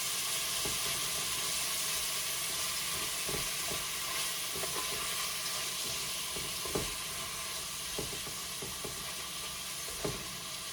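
Shrimp and garlic sizzling steadily in hot oil in a pot, with a few light knocks from stirring scattered through.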